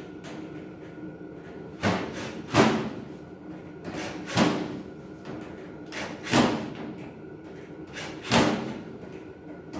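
Knocks and thumps of steel cabinet parts being worked into place, coming in pairs about every two seconds, the second of each pair louder.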